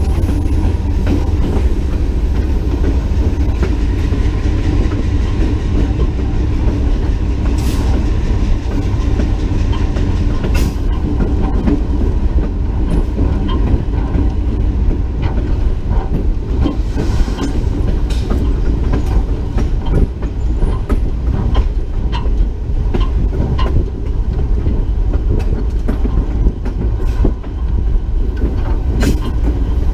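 Diesel locomotive running along jointed track: a steady low rumble and engine drone, with the wheels clicking over rail joints at uneven intervals.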